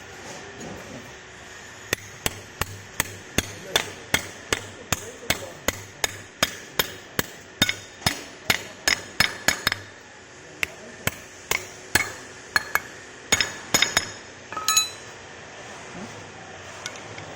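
Hammer striking metal parts while fitting an Exide Neo front fork: a run of sharp knocks about three a second for some eight seconds, then after a short pause a slower, irregular set of blows, one of which rings metallically.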